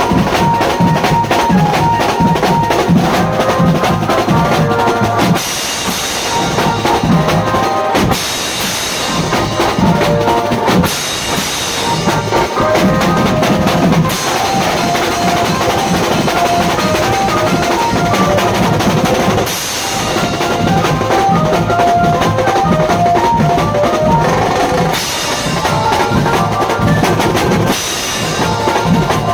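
Loud drum-heavy band music: a drum kit with bass drum and snare keeps a fast beat under a repeating melody of short notes, and the beat drops away briefly a few times.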